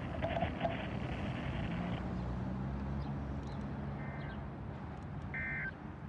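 Short, steady electronic beeps, twice about a second and a half apart, over a low steady hum. Before them, the tail of a radio voice and its hiss cut off about two seconds in.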